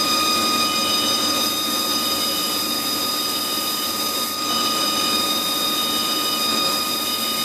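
HAAS TL-3 CNC lathe running with its spindle turning at speed: a steady high whine in several pitches over a constant machine hiss, while a Scotch-Brite pad is held against the spinning aluminium bar to polish it.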